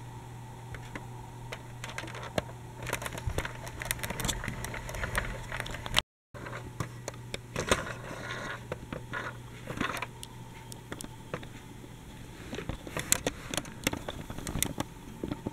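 Handling noise from a plastic toy tram being moved along: scattered clicks, scrapes and crackles over a steady low hum. The sound drops out for a moment about six seconds in.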